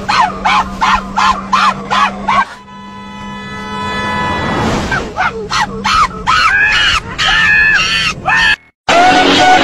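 Chimpanzee calling in quick, rising-and-falling hoots, about three a second, over a steady low hum. The calls break off for about two seconds while a held musical note sounds, then return louder and stop suddenly near the end.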